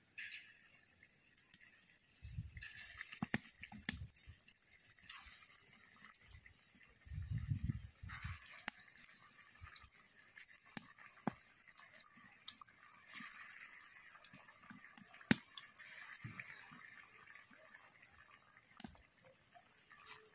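Soybean fritters deep-frying in hot oil in an aluminium wok: a steady sizzle with scattered crackles and pops. A few soft low thumps come through, the loudest about seven or eight seconds in.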